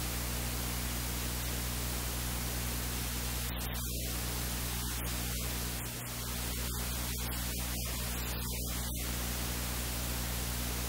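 Steady hiss with a low electrical hum underneath, dipping briefly about six seconds in.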